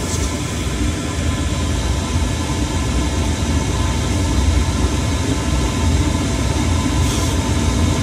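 Chinese diesel parking heater running after ignition: its combustion blower and burner make a steady drone with faint fan tones over it. The glow plug has just switched off, so the burner is now sustaining itself.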